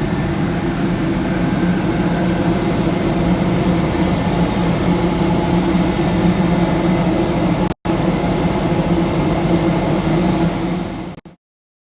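Airbus A320-200 jet engines and airflow in a steady loud drone with a low hum. It drops out for an instant about two-thirds of the way through, then cuts off abruptly near the end.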